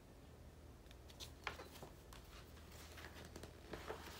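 Pages of a large picture book being handled and turned: faint papery rustles and a few soft taps, more of them in the second half, over a low steady hum.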